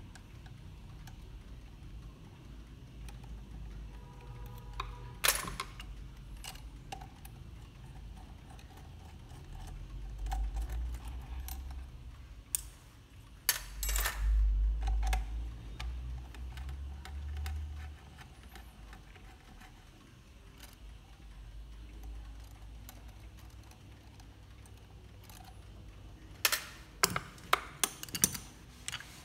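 Scattered small metallic clicks and taps from hands and tools working on an Odo 58 clock movement in its wooden stand. Dull low bumps of handling in the middle, and a quick run of sharp clicks near the end.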